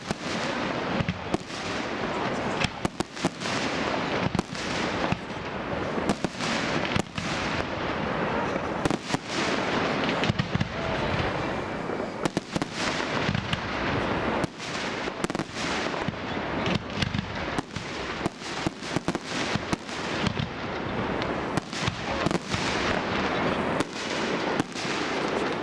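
Aerial fireworks display: shells bursting in rapid succession, several sharp bangs a second over continuous crackling.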